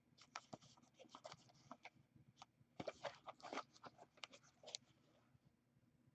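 Faint, irregular crackling and crinkling of clear plastic shrink-wrap being handled and pulled off a box of hockey cards.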